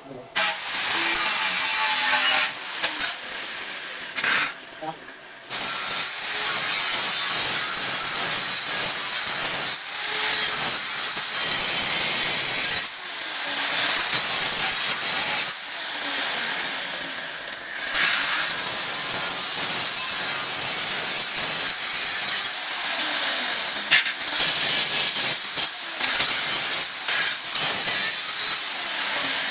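Electric angle grinder working on steel in several long bouts, with short breaks between them; its high whine falls in pitch each time the motor slows.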